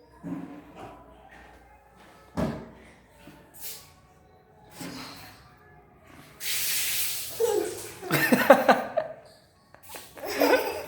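A person's voice making short sounds on and off, with a single thump about two and a half seconds in and a breathy rush of about a second near the middle, followed by louder voice sounds.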